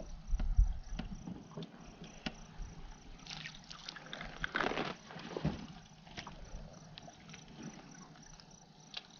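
Small splashes and trickling water with scattered light knocks and clicks; the loudest splashing comes about three to five seconds in.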